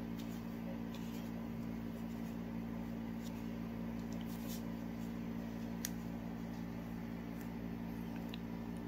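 A steady, even hum from a household machine such as a fan or appliance, with a few faint clicks and rustles scattered through it.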